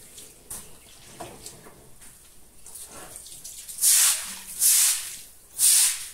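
Stiff broom scrubbing a wet concrete floor. After a quieter stretch with faint running water, three sharp swishing strokes come in the last two seconds, a little under a second apart.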